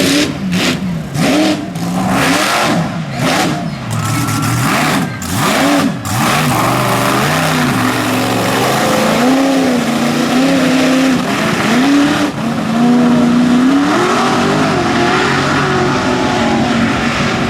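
Mega truck engine revving hard through a mud bog pit. For the first several seconds its pitch rises and falls in choppy throttle bursts, then it holds at high revs under a heavy wash of noise.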